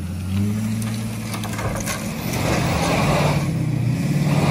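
Heavy-duty dual-rear-wheel pickup truck's engine pulling under load as it tows a loaded trailer over railroad tracks, its engine note climbing and growing louder about three seconds in. A few sharp knocks come from the rig about a second and a half in.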